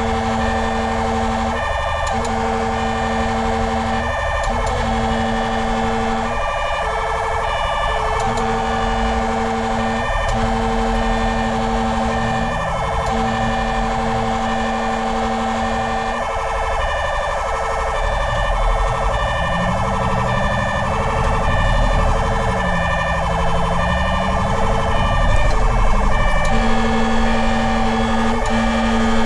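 Fire engine's siren sounding while responding to an alarm: a steady tone broken by short gaps every second or two, joined a little past the middle by a slow rising and falling wail, over a low rumble.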